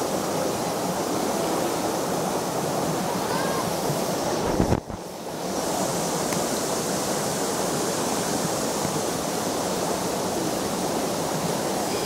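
Shallow river babbling over stones: a steady rush of flowing water. About five seconds in there is a low thump, and for about a second after it the water sound is muffled.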